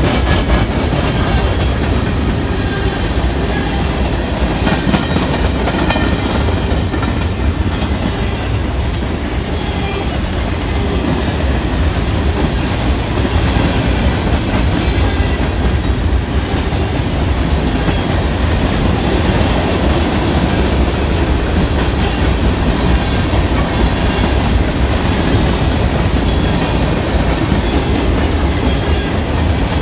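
Train rolling past at close range, a steady loud rumble and rattle of railroad cars on the track that keeps on without a break.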